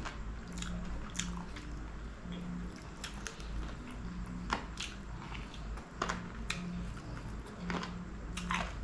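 Close-miked chewing and wet smacking of a person eating curried chicken leg by hand, with irregular sharp sticky clicks about once a second.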